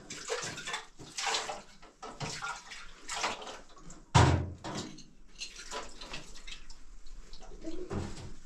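Washing up at a kitchen sink: water splashing in irregular bursts, with a sharp knock about four seconds in.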